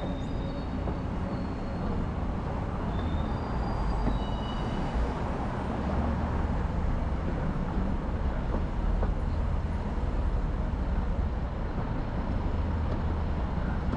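Steady low rumble of a vehicle in motion, with a few brief high squeaks in the first few seconds.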